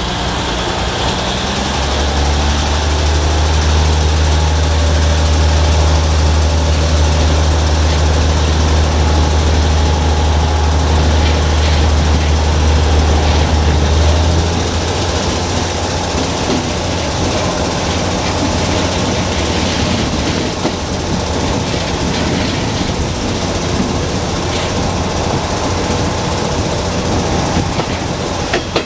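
Diesel railcar running under power, with a deep steady engine drone and a rolling rumble of wheels on track. About halfway through, the engine drone drops away as power comes off, leaving the wheel and track rumble.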